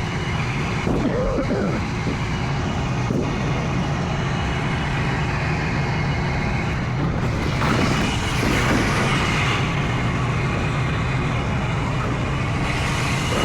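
Rooftop HVAC unit running with a steady low hum, with a couple of louder stretches of hissing, scraping noise about eight seconds in and near the end.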